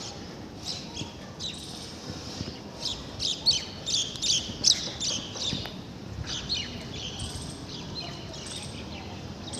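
Small birds chirping in a quick series of short, high calls, busiest in the middle few seconds, over a steady low background noise.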